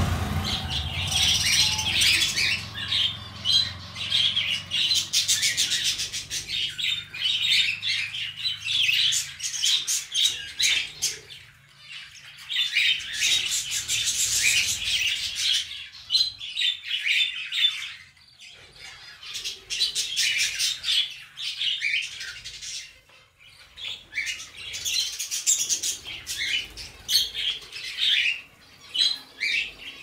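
Several budgerigars chattering and chirping rapidly over one another, the chatter swelling and easing in waves with a few brief lulls.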